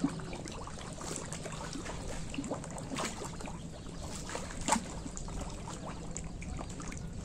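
Pond water trickling and splashing lightly at a muddy bank, with scattered small clicks and one sharp knock about four and a half seconds in.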